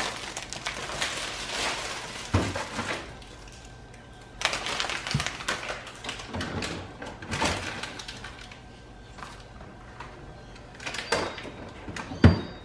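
Plastic grocery packaging crinkling and rustling in irregular bursts as food is handled and put into a fridge, with a few dull knocks of items being set down, the sharpest near the end.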